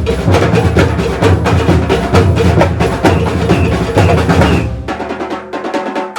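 Batucada percussion ensemble playing: deep surdo bass drums under snare and higher drums in a dense groove. About two-thirds of the way in the surdos drop out, leaving lighter drums, before the full ensemble comes back in at the very end.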